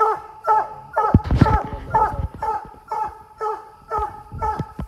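Treeing Walker coonhound barking steadily at a tree, about two short falling barks a second, the tree bark of a hound that has treed a raccoon. A couple of dull low thumps come through about a second in and again near the end.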